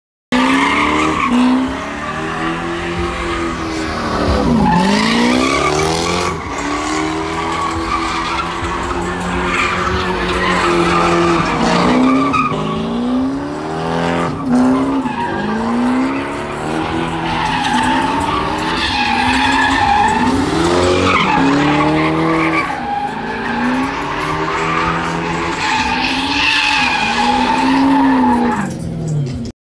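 A car doing donuts in a pit: its engine revs up and falls back again every second or two while the tyres squeal and skid.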